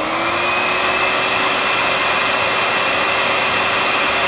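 Vacuum cleaner motor running at full speed: a loud, steady rushing sound with a high whine, coming up to speed in the first half second.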